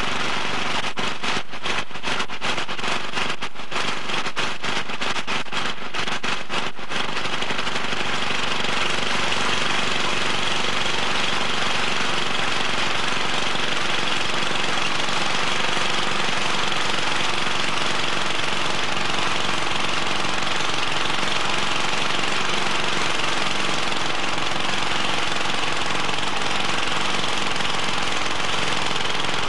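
Petrol lawnmower engine running while the mower is pushed through long grass. It sounds rapidly choppy for the first several seconds, then runs steadily.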